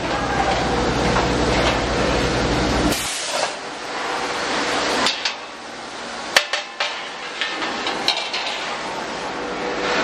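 A workshop machine runs with a dense low hum and cuts off suddenly about three seconds in. It is followed by scattered sharp metallic taps and clinks.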